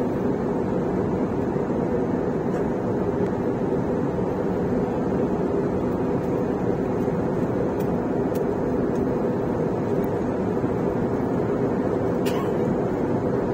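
Steady roar of an airliner's engines and rushing airflow heard inside the passenger cabin in flight, even and unchanging throughout.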